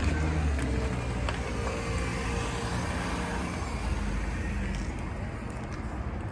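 Steady outdoor road-traffic rumble.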